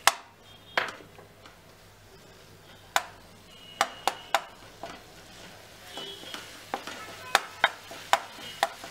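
Plastic spatula tapping and scraping against a nonstick frying pan, about a dozen separate knocks, as green chili paste is stirred in hot oil with a faint sizzle.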